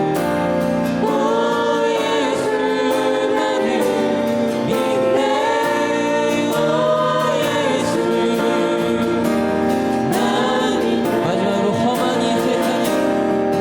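A group of voices singing a Korean worship song together in long, held phrases over sustained accompaniment.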